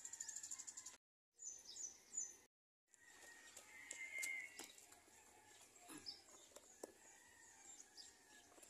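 Faint outdoor ambience with birds chirping: a fast high trill at the start, then short, high, falling chirps. The sound drops out completely twice in the first few seconds, and a few soft clicks come later on.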